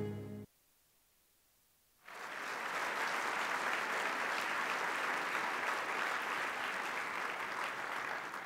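Music ending about half a second in, then a short silence, then an audience applauding steadily.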